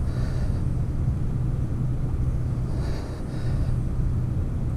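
Steady low drone of a distant engine running, even in pitch and level throughout.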